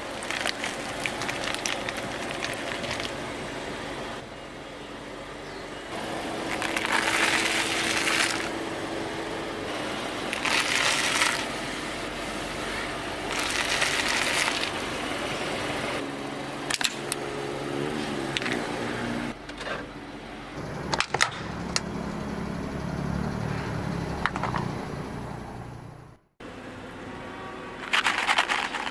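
A car's engine running slowly while its tyres roll over objects, with several loud bursts of crunching and cracking as things are crushed under the wheels. The sound changes abruptly several times, as if separate takes are joined.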